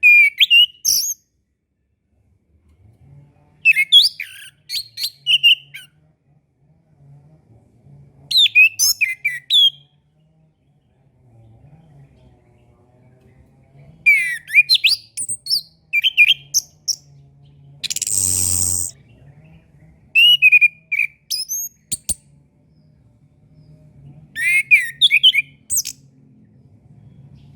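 Chestnut-capped thrush (anis kembang) singing short phrases of quick high whistles and trills every few seconds. About 18 seconds in comes one harsh, rasping burst under a second long.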